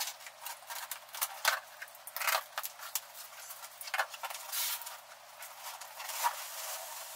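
Cardboard shipping box being opened by hand: a cutter slicing the packing tape, then the cardboard flaps opening and the box being tipped and handled, heard as a run of short scrapes, crinkles and knocks with a few longer rubs.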